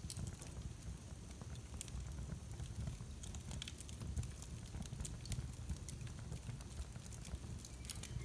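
Fire crackling in a fireplace: irregular sharp pops and snaps over a low steady rumble of the flames.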